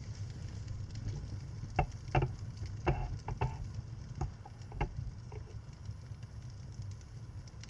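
Wood fire burning in a fireplace with a low, steady rumble. A run of sharp crackles and pops comes between about two and five seconds in.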